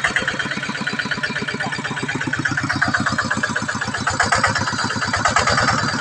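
Two-wheel hand tractor's single-cylinder diesel engine running, a fast, even chugging beat that gets a little louder past the middle as the tractor works in deep mud.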